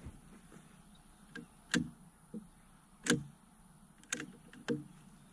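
About seven sharp clicks and knocks at uneven spacing, from the rifle and shooting gear being handled at the firing line before a shot.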